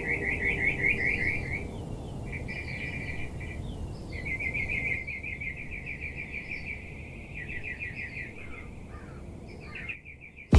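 Birdsong: rapid chirping trills repeated in runs, with higher short chirps above them, over a low background rumble; it cuts off suddenly near the end.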